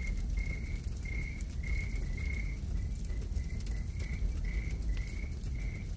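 Background ambience with a cricket-like chirp repeating about twice a second over a low rumble and faint crackling.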